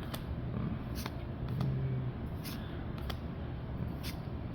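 Pokémon trading cards being flipped through one at a time, each card slid off the stack with a short papery flick, about one every second, over a low steady hum.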